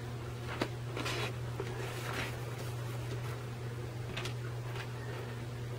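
Faint handling noises, a few light clicks and rustles as small resin figure parts are picked up and put down on a cutting mat, over a steady low hum.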